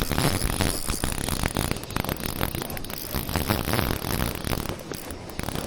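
Fishing reel being cranked in: a rapid, uneven run of clicks and rasps.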